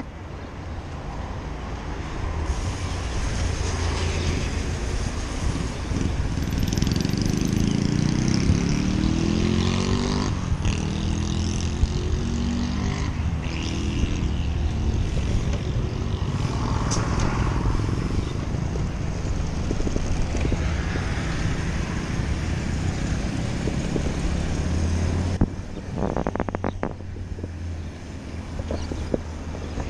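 Road traffic running along the roadside while a bicycle is ridden beside it, with steady rumble and wind noise; a vehicle's engine passes with a shifting pitch about eight seconds in, and a brief rattle of clicks comes near the end.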